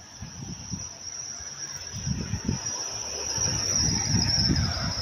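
Steady high-pitched insect buzzing that runs on without a break, over a low, uneven rumble that swells in the middle of the clip.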